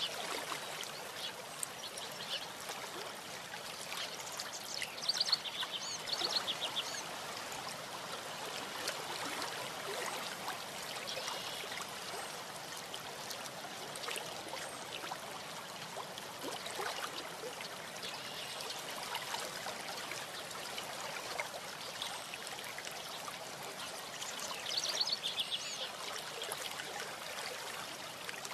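Steady outdoor hiss from a stork-nest webcam's microphone, with short bursts of high, rapid chirping from birds about five seconds in and again a few seconds before the end.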